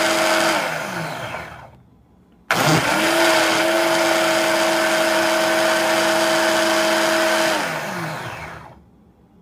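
Frappe maker's built-in blender motor running its automatic blend cycle with a steady whine. It spins down and stops about two seconds in, starts again abruptly half a second later, runs for about five seconds, then spins down with falling pitch and stops.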